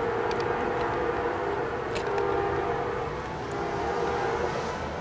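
A multi-chime K5LA air horn on a passing Amtrak train sounds in separate long blasts. One blast ends about a second in and two more follow, each about a second long. The train's running noise carries on under them.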